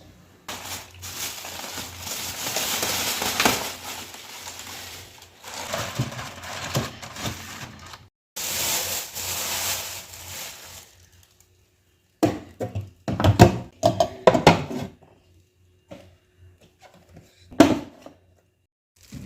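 Two long stretches of hissing, rustling noise, then a quick run of sharp knocks and clatters and one last knock near the end, from household items being handled during cleaning.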